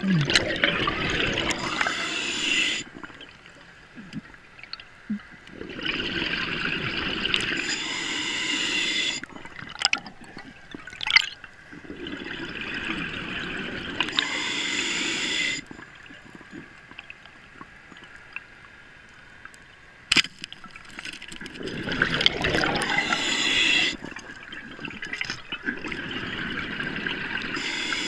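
Underwater, a scuba diver's exhaled breath bubbles out of the regulator in rushes of two to three seconds, five times, with quieter gaps between them. A few sharp clicks or knocks sound in the gaps, the loudest about eleven seconds in.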